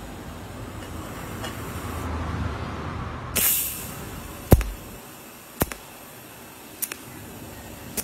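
TIG welding torch striking short arcs on a stainless steel exhaust tip: a sharp click at each arc start, about once a second, the loudest about halfway through. A brief hiss comes just before that loudest click.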